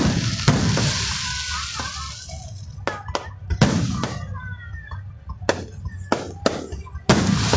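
Aerial fireworks shells bursting overhead: a string of sharp bangs, the loudest right at the start, half a second later, around three and a half seconds in and near the end, with smaller pops between and a crackling hiss trailing after the big bursts.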